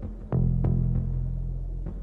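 Dramatic film-score music: a steady low drone with heavy drum hits, the loudest about a third of a second in and another near the end.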